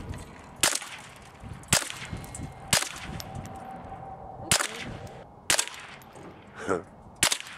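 Rifle shots fired down range: six sharp reports, roughly one a second, with a longer pause in the middle.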